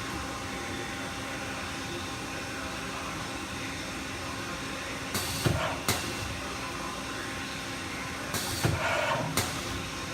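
2004 Haas SL-10 CNC lathe running with a steady hum and a held tone. The hum is broken twice, about five seconds in and again near the end, by short bursts of hiss with sharp clicks.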